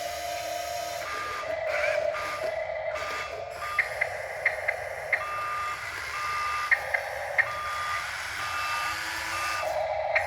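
Reversing alarm beeping, a single repeated tone at a regular pace of roughly one beep a second, from a radio-controlled construction machine's sound unit, with sharp ticks in between.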